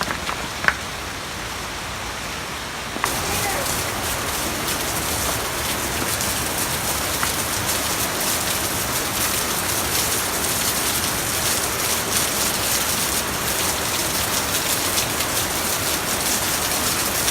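Waterfall splashing and rushing, a steady wash of falling water that grows louder and fuller about three seconds in.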